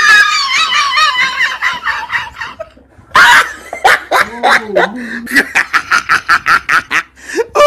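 People laughing hard: a high, wavering laugh at first, a short breathy burst of laughter about three seconds in, then a quick run of rapid laughing pulses.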